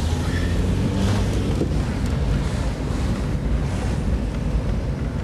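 Car driving, heard from inside the cabin: a steady low rumble of engine and road noise, with wind buffeting on the microphone.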